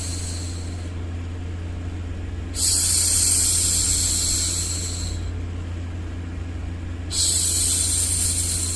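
A woman's long 'shhh' hushing sound, repeated: two shushes start sharply a little over two seconds in and about seven seconds in, each fading away over a couple of seconds, with the tail of an earlier one dying away at the start. Beneath them runs a steady low white-noise hum.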